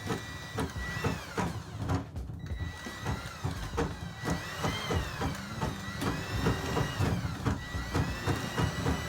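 Drill-powered drum drain snake running in a blocked tub drain line: the motor whine rises and falls in pitch every second or two as the speed changes, over a steady run of knocks and clicks from the cable and drum.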